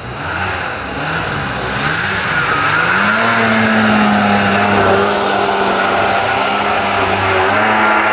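1979 Ski-Doo Blizzard 5500 snowmobile's two-stroke engine revving up in several short climbs, then held at a steady high pitch for about four seconds, with a brief dip and rise again near the end.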